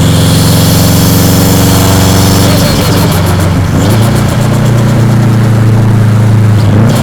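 Subaru Impreza WRX's EJ207 turbocharged flat-four engine running steadily at low revs, its note shifting lower and stronger about halfway through. A hiss sits over the first half.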